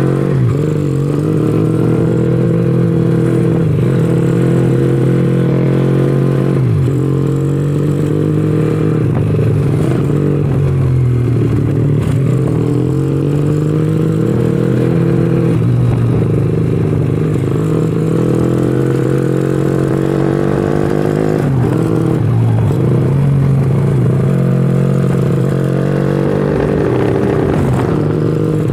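Honda Astrea Legenda 2's four-stroke single-cylinder engine under way, revving up through the gears: the pitch climbs for several seconds, drops at each gear change, then climbs again. The carburettor is running rich at low revs, which the rider puts down to a pilot jet that is too large.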